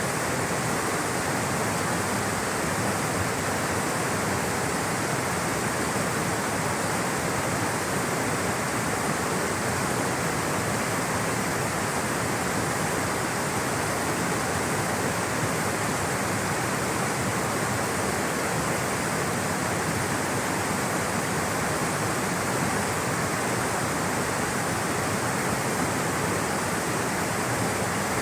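Water rushing steadily over rocks in a stream or waterfall, a constant even rush with no breaks.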